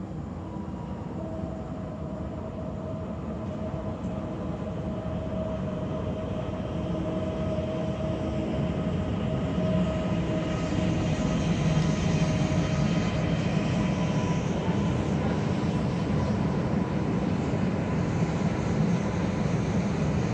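Electric multiple-unit passenger train approaching along the platform: a steady rumble from the wheels on the rails, with a constant whine from the motors. It grows louder over the first half as it comes close, then holds level.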